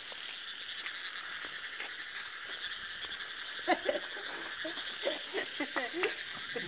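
Frogs croaking in quick, irregular calls from about halfway through, over a steady high-pitched chorus of insects.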